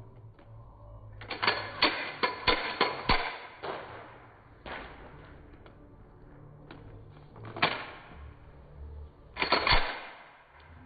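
Sharp metallic clacks of a Glock pistol being worked by hand to clear a double feed (Type 3 malfunction). A quick run of clacks starts about a second in, single clacks follow in the middle, and another tight cluster comes near the end.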